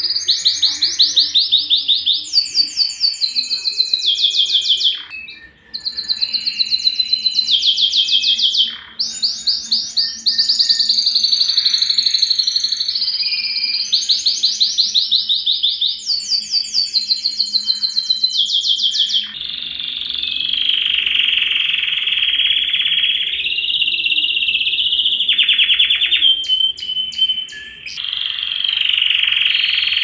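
Domestic canary singing: fast trills of rapidly repeated high notes, each run lasting a second or two before switching to another pitch, then, about two-thirds of the way through, a lower, continuous rolling warble.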